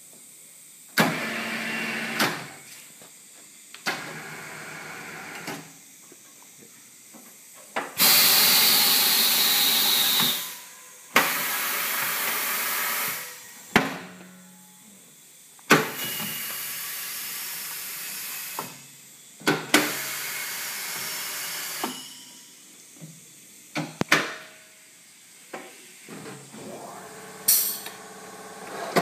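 IYASAKA SICE S419GP tire changer run through its pedal and hand controls: about ten bursts of compressed air, each starting with a sharp clack and hissing for up to three seconds, the loudest a long high hiss about eight seconds in. These are the machine's air valves and cylinders working the clamps and bead breaker.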